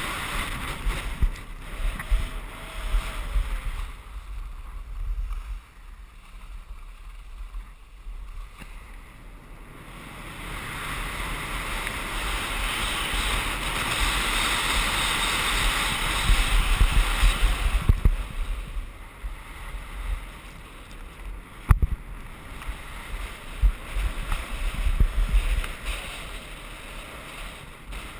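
Wind buffeting an action camera's microphone while skis hiss and scrape over packed snow on a downhill run. The rush drops for a few seconds near the start, then builds louder in the middle, with one sharp knock about three-quarters of the way through.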